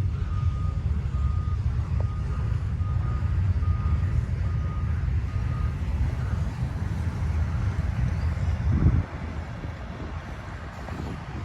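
Eastbound intermodal freight train rolling past, a steady low rumble of wheels and cars that drops off sharply about nine seconds in. A repeated high beep sounds over it through the first half.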